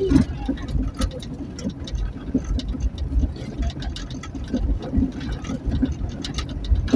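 A motor vehicle on the move: a steady low engine and road rumble, with scattered small knocks and rattles.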